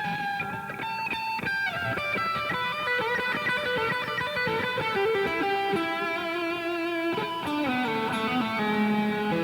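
Electric guitar played through a Revv G3 preamp/distortion pedal, with a distorted tone full of overtones. It plays a melodic line of single notes, some held with a wavering vibrato.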